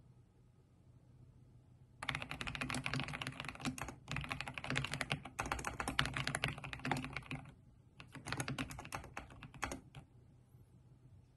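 Fast typing on a computer keyboard with backlit keys: dense runs of key clicks start about two seconds in, break off for a moment about two thirds of the way through, resume briefly and stop near the end.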